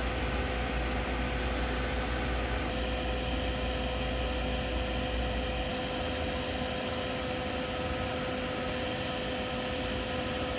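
Steady whirring machine hum with a constant mid-pitched tone; a deeper rumble underneath it stops about six seconds in.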